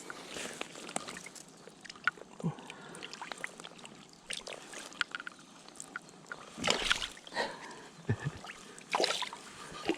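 Water splashing and sloshing in short bursts, one about seven seconds in and another near the end, with small clicks and knocks of handling in between.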